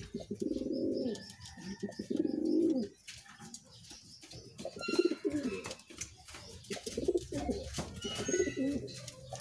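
Racing pigeon cocks cooing: three loud rolling coos one after another in the first three seconds, then softer, broken cooing and shuffling on the loft floor.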